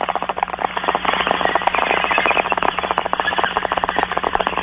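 Bong-hit sound effect played as a radio drop: water bubbling rapidly and irregularly through a bong as smoke is drawn, over a low steady hum.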